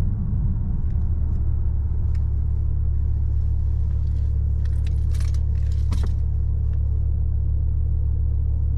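Steady low rumble in the cabin of a BMW i8 hybrid as it rolls to a stop, with a few faint clicks about halfway through.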